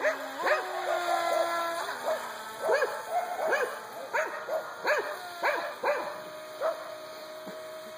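A dog barking repeatedly, short high barks about once or twice a second. Under them, a steady whine holds one pitch for a second or two, then steps to another, from the radio-controlled speed boat's motor as it runs across the pond.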